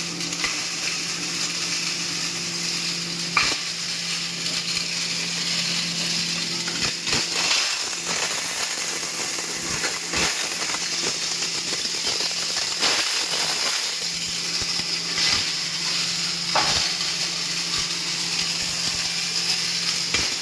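5 hp coconut grinding machine running: a steady motor hum under a gritty hiss, with scattered crackles and clicks.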